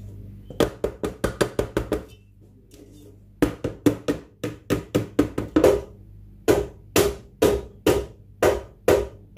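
Cake pans of sponge batter being rapped on the counter to knock out air bubbles: three runs of sharp knocks, the first quick at about six a second, the later two slower at about three a second.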